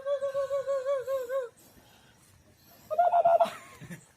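People laughing: a long run of rapid, high-pitched laughter, then a second shorter burst about three seconds in.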